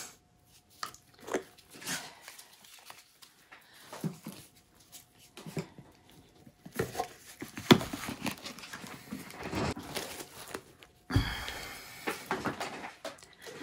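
Handling noises of objects being moved about on a work surface: scattered taps and knocks, with one sharp knock about halfway through and a denser rustling, scraping noise near the end.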